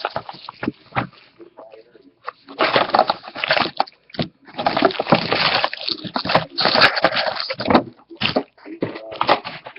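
Crinkling and tearing of packaging as a sealed trading-card box is opened, in several long bursts of rustling.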